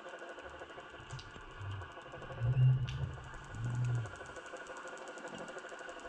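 Underwater sound picked up through the housing of a jig-mounted GoPro: a steady mechanical hum with a fast ticking rhythm. Three low, muffled thumps come in the middle, the second and loudest about two and a half seconds in, with a sharp click just after it.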